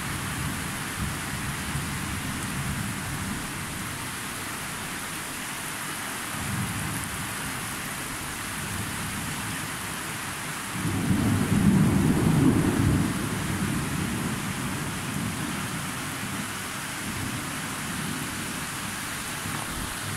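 Steady rain falling during a thunderstorm, with thunder rumbling low. The tail of one rumble fades in the first couple of seconds, and another swells about halfway through and dies away over a few seconds.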